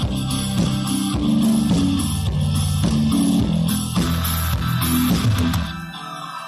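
Instrumental background music, becoming quieter about six seconds in.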